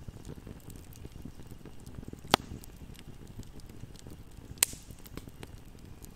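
Wood fire burning, with a steady low flutter of flames and faint scattered crackling. Two loud, sharp pops come from the burning logs, one about two seconds in and one about four and a half seconds in.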